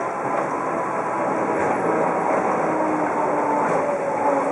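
Sassi–Superga rack railcar rolling slowly into the station: a steady rumble of wheels and running gear on the rack track, with faint whining tones.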